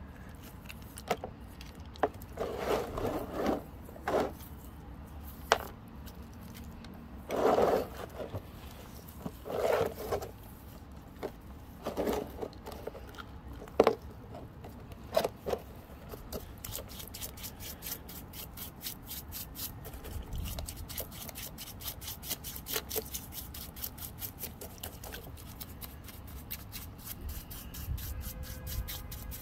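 Wet rocks being shifted by hand in a plastic tub of muddy water, with scattered knocks and scrapes. About halfway through, a bristle paintbrush starts scrubbing the wet rock in quick, even strokes.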